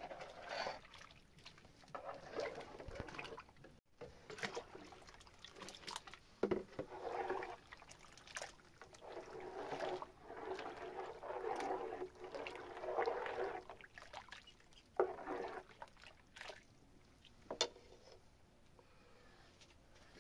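Water sloshing and pouring in a series of short, irregular bursts, with a few sharp knocks between them.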